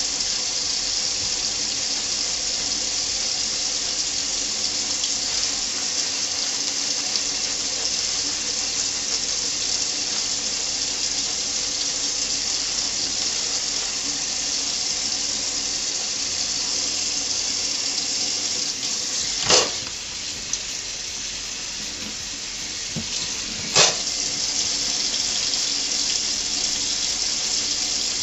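Kitchen faucet running steadily into a stainless steel sink. Two sharp knocks come about two-thirds of the way through, roughly four seconds apart.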